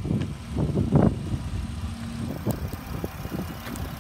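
The 3.6-liter VVT V6 of a 2019 Dodge Grand Caravan idling under the open hood, overlaid by irregular rumbling wind noise on the microphone, strongest about a second in.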